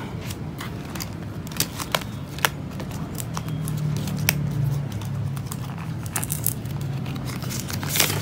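Clear plastic zip-pouch pages of a ring-binder cash wallet being handled and turned, crinkling with scattered light clicks and snaps. A sharper snap comes near the end.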